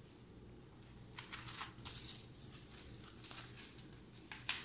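Faint, scattered rustles and crinkles of a sheet of paper being folded and handled into a paper airplane, with a sharper rustle near the end.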